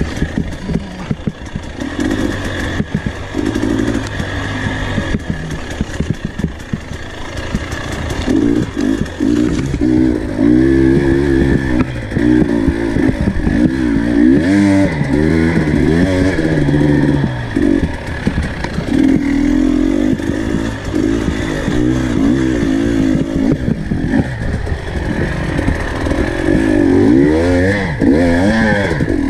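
GasGas dirt bike engine under way, its revs climbing and dropping again and again with throttle and gear changes, with runs of quick rev climbs in the middle and again near the end.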